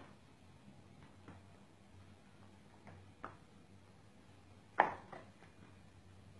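Quiet room with a faint hum and a few short, soft knocks or clicks; the loudest comes about three-quarters of the way through, followed by a couple of weaker ones.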